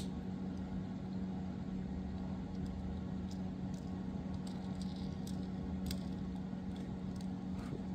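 Steady low hum with a few faint, scattered clicks of small diecast toy-car parts being handled and fitted back together.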